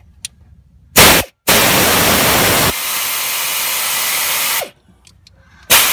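Pneumatic air ratchet running in bursts with a loud air hiss, turning a drill bit through a guide to bore out a stripped spark plug hole in a Ford 5.4 Triton cylinder head for a thread-repair insert. A short burst comes about a second in, then a run of about three seconds, and another run starts near the end.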